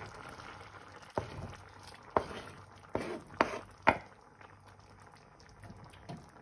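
Browned chicken pieces pushed off a plastic cutting board into a pan of simmering rice and stock: about five sharp knocks and plops over a few seconds, then only the soft bubbling of the simmer.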